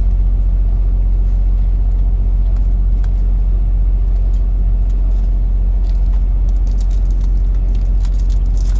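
Steady low rumble of a motor vehicle, with a few faint light clicks over it.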